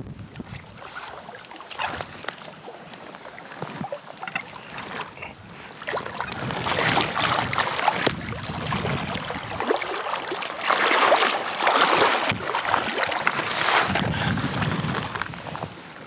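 A hooked rainbow trout splashing and thrashing at the water's surface in repeated bursts as it is played in and netted. A few sharp reel clicks come in the first few seconds.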